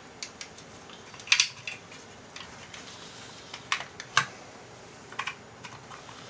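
Scattered light clicks and taps of a circuit board and plastic housing being handled, as the display board is fitted onto the case of a CJ2 HVAC climate-control module. The clicks come irregularly, about a dozen in all, the loudest a little over a second in.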